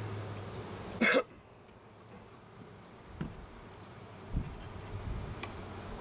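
A person coughs once, sharply, about a second in, over the buzzing of honeybees crowding a lifted brood frame. The colony has a queen that cannot lay worker eggs, and such a hive buzzes differently, by the keeper's account. Two soft knocks follow as the wooden frame is lowered back into the hive box.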